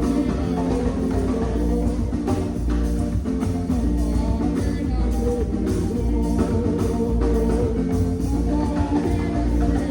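Rock music playing: a band with guitar and a steady drum beat, and a singing voice over it.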